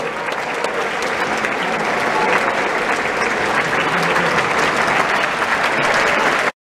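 Large opera-house audience applauding steadily, with one person's clapping close to the microphone. The sound cuts off abruptly near the end.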